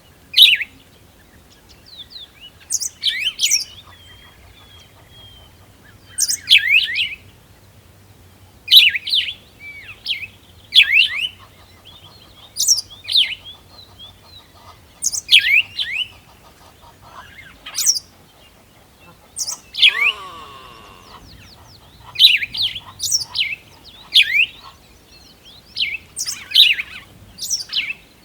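A bird calling repeatedly: quick, sharp, down-slurred notes in short clusters every one to two seconds, with a brief lower, rougher sound about twenty seconds in.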